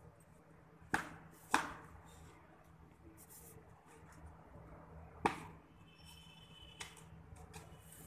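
A few sharp clicks or knocks over a faint steady hum: two about a second in, half a second apart, and a louder one past the middle.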